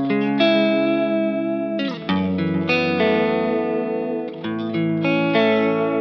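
Electric guitar chords on a Fender Stratocaster, played through an engaged Native Audio Pretty Bird Woman chorus/vibrato pedal into a Vox AC30 amp. A new chord is struck every couple of seconds and left to ring.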